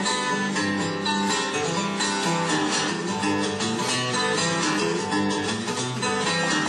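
Fingerpicked guitar in open G tuning, playing a blues instrumental passage with a picked bass line under melody notes.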